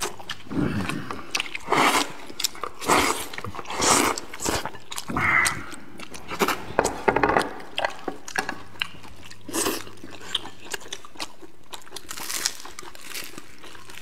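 Close-miked eating sounds: biting and chewing of flatbread and noodles, in irregular short bursts.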